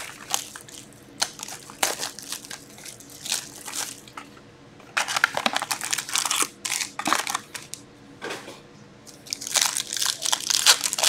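Hockey card pack wrappers crinkling and tearing open, with cardboard box rustling, as a box of Upper Deck SPx cards is opened; the crackling comes in irregular bursts with short pauses between.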